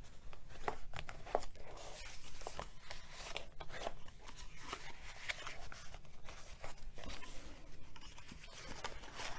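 Cardstock being creased along its score lines with a bone folder, with paper folded and handled between strokes: irregular soft rubbing and scraping strokes and light paper rustles.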